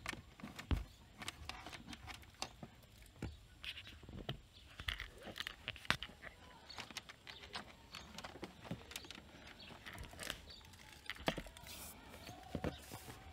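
Handling noise: irregular light clicks, taps and rustles of hands working a cable into the plastic interior trim of a car.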